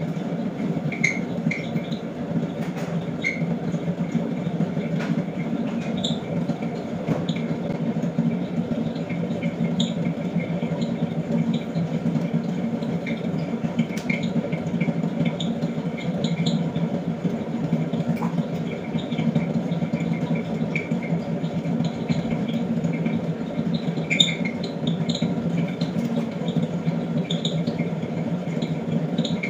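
Electric pottery wheel motor running with a steady low hum, with scattered short high squeaks over it.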